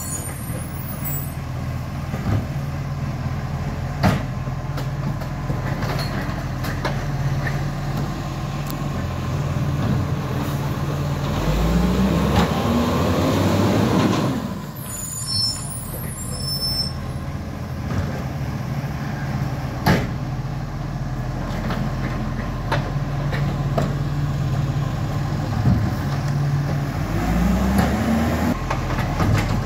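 Garbage truck's diesel engine running steadily, revving up twice about fifteen seconds apart, with a few sharp knocks.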